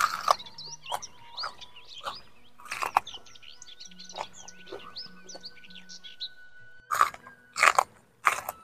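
A person biting and chewing raw vegetables with repeated crunches, the loudest three close together near the end. Birds chirp throughout, with faint background music.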